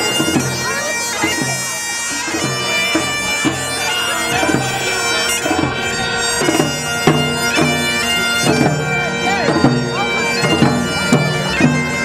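Bagpipes playing a tune over their steady, unbroken drones.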